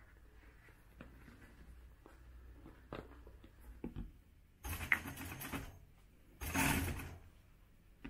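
Hand work on a leather bag's metal frame at a workbench: faint clicks of small metal parts and tools, then two loud rustling bursts of about a second each, past the middle and near the end.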